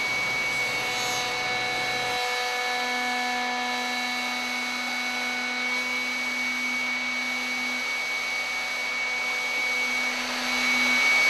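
Router in a router table running steadily with a high whine, its Freud 45-degree lock miter bit cutting the joint profile into a board fed along the fence.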